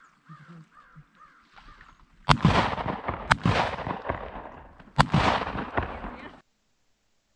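Faint, repeated quacking calls, then three shotgun shots, about a second and then a second and a half apart. Each shot is loud and has a long tail that dies away. The sound cuts off suddenly near the end.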